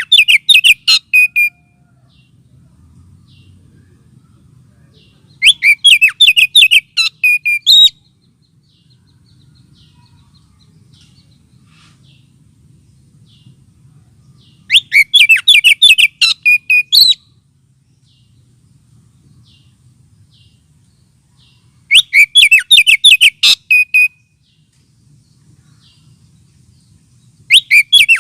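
Oriental magpie-robin lure call: bursts of fast, sharp, rapidly repeated notes, each about two seconds long, come back every five to seven seconds. It is played to provoke magpie-robins and rouse their aggression. A faint low hum fills the gaps between bursts.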